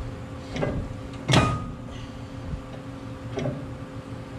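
Cast-iron front brake rotor and hub being slid onto the wheel spindle of a 1996 Ford F-150, with one sharp metallic clank that rings briefly about a second and a half in, and a couple of softer knocks.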